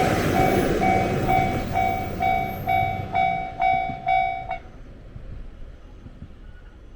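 Japanese level-crossing warning bell ringing "kan-kan" about twice a second while a single diesel railcar runs away from the crossing, its engine hum and wheel noise fading. The bell cuts off suddenly about four and a half seconds in as the crossing clears.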